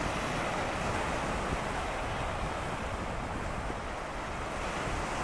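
Steady wind and choppy sea water, with wind rumbling on the microphone.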